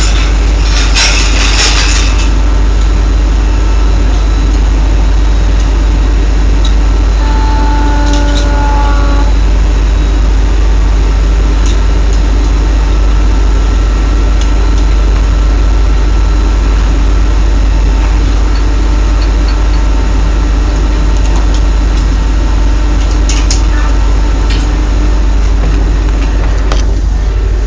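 Oil drilling rig machinery running with a loud, steady low drone. A few metal clanks sound in the first couple of seconds, and a short pitched tone rings about a quarter of the way in.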